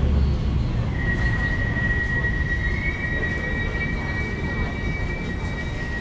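Elizabeth line Class 345 train pulling into the platform behind the screen doors: a low rumble, with a steady whine starting about a second in and a second, slightly higher whine joining about halfway, both stopping near the end as the train comes to a halt.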